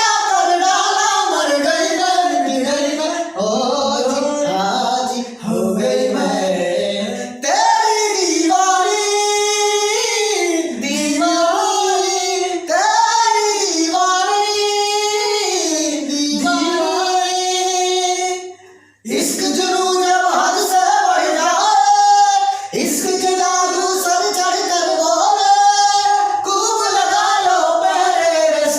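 A female voice singing a melody with long held notes, vibrato and sliding ornaments, at full voice, with a short break about two-thirds of the way through.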